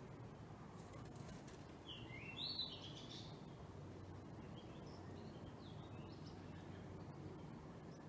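Small birds chirping at a nest: a quick run of short high chirps about two to three seconds in, then a few fainter, scattered chirps, over a faint steady background noise.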